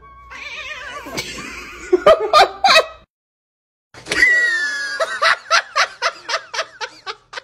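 People laughing in quick bursts. The laughter breaks off for about a second near the middle, then starts again as rapid, repeated laughing.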